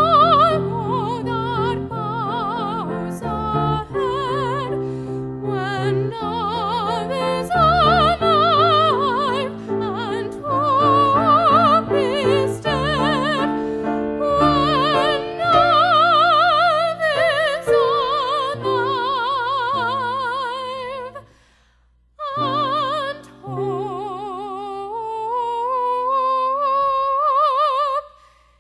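Female classical voice singing with wide vibrato over piano accompaniment. About two-thirds of the way through, voice and piano stop briefly, then the voice returns on a long held note that slowly rises in pitch.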